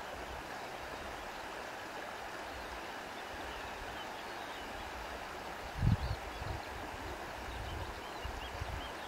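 Steady rush of running water, with faint high bird chirps over it. A brief low buffet of wind hits the microphone about six seconds in.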